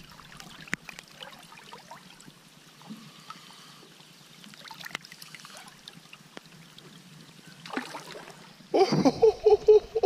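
Soft trickling and lapping of creek water as a barramundi is let go by hand at the surface, with faint scattered ticks. Near the end a man lets out a loud whoop with a wavering pitch.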